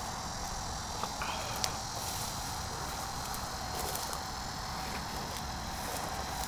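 A steady chorus of insects chirring without a break, over a low, even rumble, with a couple of faint clicks a little over a second in.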